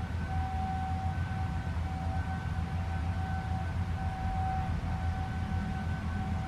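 Outdoor warning siren holding a steady tone that fades in and out now and then, heard over a steady low rumble.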